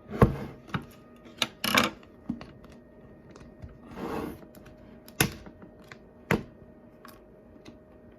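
Plastic slime tub and its packaging being handled and pried open: scattered sharp clicks and knocks of plastic, with a few short crinkling rustles.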